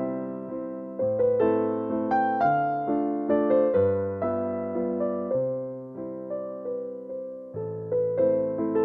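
Background music: a gentle piano-like keyboard piece, notes struck and fading over a low note that changes about every second and a half.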